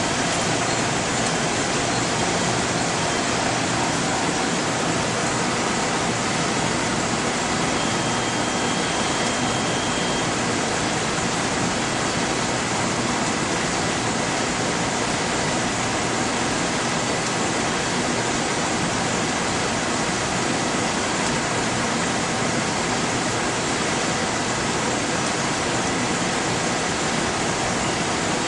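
Steady, even hiss and hum of laboratory machinery and ventilation, with faint steady whines running through it and a brief higher whine about eight seconds in.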